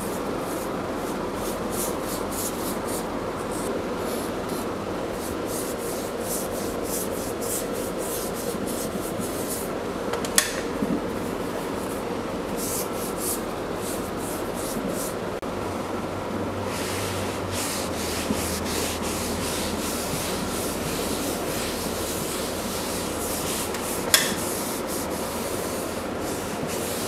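A bristle brush scrubbing wood stain onto a bare wooden chair seat in quick repeated strokes, and later a rag rubbing the stain off the wood. Two sharp taps, about ten seconds in and near the end, over a steady hum.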